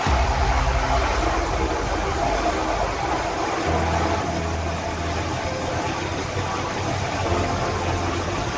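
Small turbine helicopter running on the deck just after touching down, its engine and main rotor turning at idle with a steady low hum that deepens and strengthens a few seconds in.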